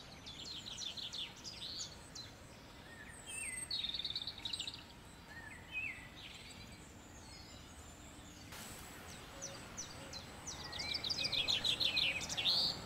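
Birds chirping and singing in repeated short runs of quick high notes, with a few trills and whistled up-and-down calls, over a faint steady hiss of outdoor ambience. The calling grows busier near the end.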